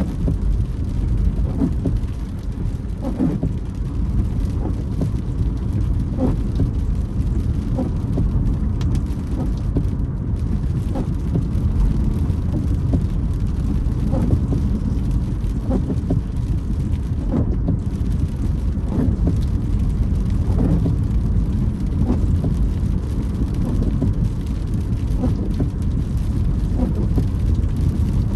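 Car driving in rain, heard from inside the cabin: a steady low rumble from the road and engine, with the windscreen wipers creaking across the glass every second or two.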